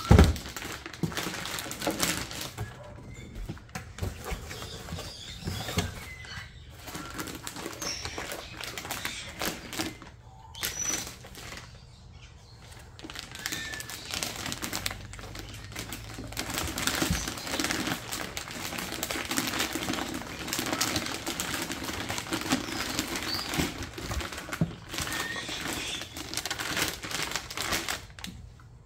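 Foam packing and a cardboard box being handled: rustling, scraping and irregular clicks and knocks, with a sharp knock right at the start.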